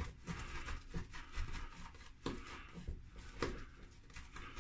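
A series of short, faint rubbing strokes against the face during a wet shave, coming irregularly at roughly two a second.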